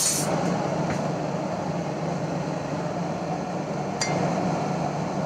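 Steady mechanical hum of a running machine, with a faint click about four seconds in.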